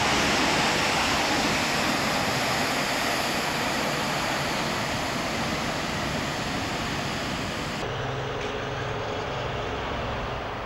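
Steady rushing rumble of a train rolling through the station, slowly fading. About eight seconds in it cuts to quieter station background with a low hum.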